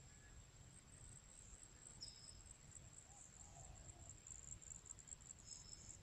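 Faint, steady high-pitched trilling of insects in the grass, with a short high chirp about two seconds in and another near the end, over a low rumble.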